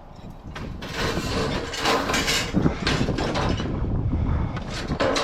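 Curbside scrap being picked up and handled: a run of irregular clanks, rattles and scraping.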